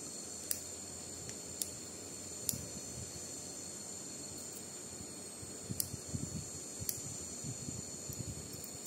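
Steel dissecting scissors and forceps clicking lightly now and then as the skin is cut from a preserved frog's leg. Soft low handling noises from the tools and tray start a little past halfway. A steady high-pitched whine runs underneath.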